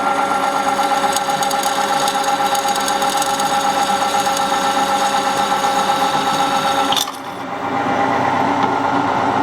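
Meddings drill press running, its electric motor and drive giving a steady mechanical hum with a rapid fine rattle; the sound cuts off sharply about seven seconds in, dips briefly and resumes.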